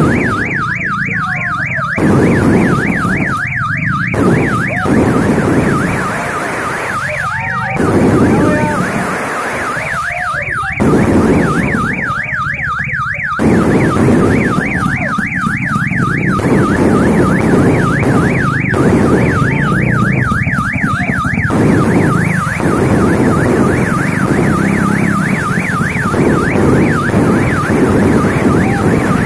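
A car alarm warbles without pause, its tone sweeping up and down several times a second. Over it, aerial fireworks bang and crackle again and again as shells burst overhead.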